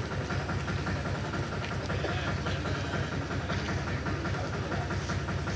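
A vehicle engine idling nearby: a steady low rumble with a fast, even pulse that holds at one level throughout.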